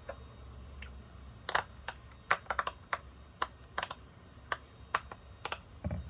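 Silicone pop-it fidget toy having its bubbles pressed and popped by fingers: an irregular run of a dozen or so sharp little pops, starting about a second and a half in.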